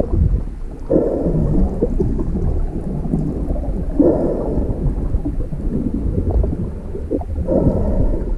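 Muffled water noise from a camera held underwater while snorkeling: a continuous low rumble and slosh, swelling into three louder surges about three seconds apart.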